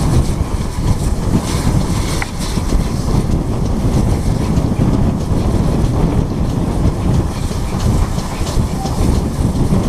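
Steam train running along the line: a steady rumble of wheels on the track, with wind buffeting the microphone mounted on top of the locomotive.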